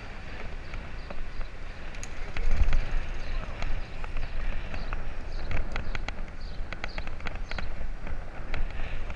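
Bicycle ride heard from a bike-mounted camera: wind rumbles and gusts on the microphone, with a run of sharp clicks and rattles from the bike over the paving slabs about halfway through. Voices of passers-by sound in the background.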